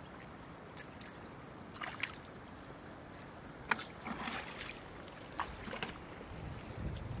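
Water sloshing and splashing in shallow floodwater, with several short sharp splashes or knocks, and a low rumble building near the end.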